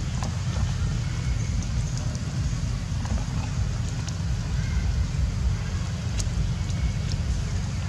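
Steady outdoor background noise: a low rumble with a light hiss over it, and a few faint ticks.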